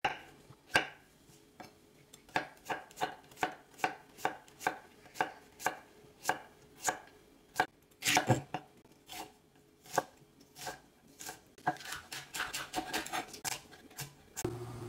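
Chef's knife chopping vegetables on a wooden cutting board, dicing zucchini and onion and then slicing green onion. The knife strikes come about two or three a second, quicker and closer together near the end.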